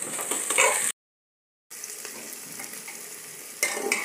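Masala frying and sizzling in hot oil in a pressure cooker, with a metal ladle stirring and scraping against the pot. The sound cuts out completely for under a second about a second in.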